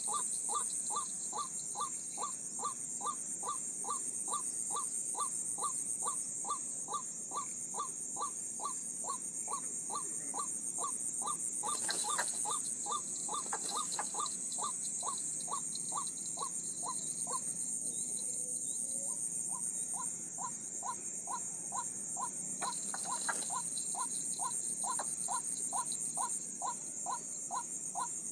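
A short bird call repeated at an even pace of about two and a half a second, with a steady high buzz of insects, and a few brief clicks.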